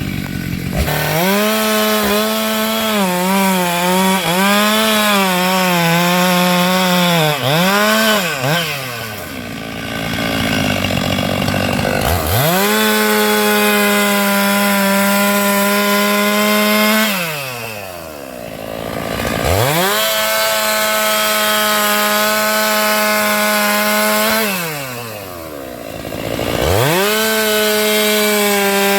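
Stihl MS 462 chainsaw revved to full throttle in four long runs. During the first run, about 1 to 9 s in, the pitch sags and wavers as the chain bites into sengon wood. Between runs it drops back toward idle.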